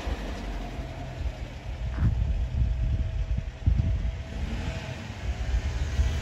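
Uneven low outdoor rumble with a faint steady hum above it, and short thumps about two seconds in and again near four seconds.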